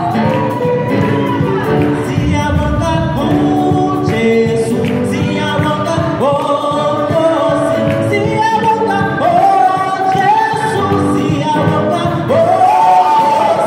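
A church praise team singing a gospel praise song, several voices together through microphones and the hall's speakers. Long held notes begin with upward slides about six, nine and twelve seconds in.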